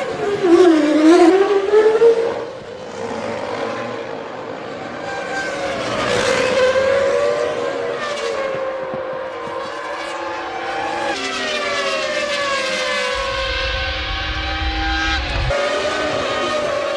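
Formula One car engines at high revs, their pitch dropping and climbing again as the cars brake, change gear and accelerate, with more than one engine heard at once.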